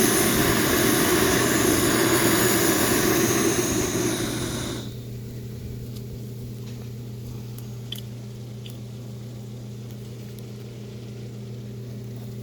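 A torch blasting flame into the rocket heater to light it: a loud, steady rushing noise that is shut off about five seconds in. After it a steady low hum remains, with a few faint clicks.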